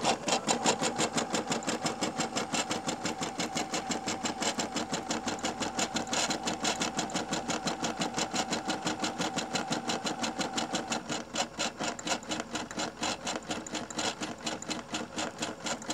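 Brother SE400 embroidery machine stitching out a letter on a test run after rethreading, the needle going up and down in a fast, even rhythm over a steady whine. The whine drops out and the stitching gets a little quieter about eleven seconds in.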